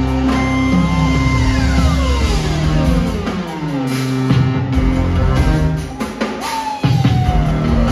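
Jazz-fusion band playing live: held notes with a long falling glide in pitch over the first few seconds, then drum hits coming in from about halfway, with a shorter falling glide near the end.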